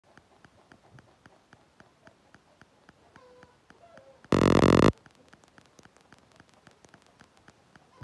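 A chicken gives one loud, brief call, about half a second long, near the middle. Faint regular ticking runs underneath at about four ticks a second.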